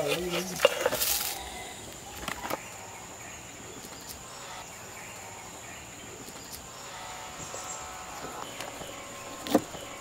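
Insects droning with a steady high-pitched tone. A few sharp clicks of a metal spatula on the griddle come in the first second, and a single knock near the end.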